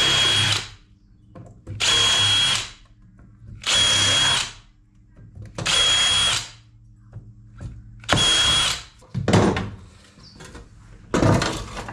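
Cordless drill run in five short bursts about two seconds apart, its bit boring into the rusted steel of an old Ferguson 20 tractor dash panel to free a bracket. Two brief knocks follow near the end.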